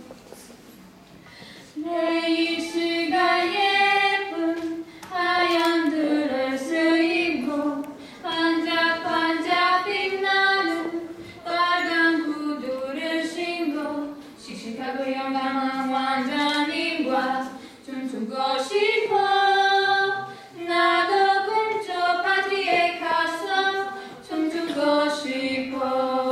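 Two young women singing a slow song together in phrases of held notes, with short breaks for breath between them.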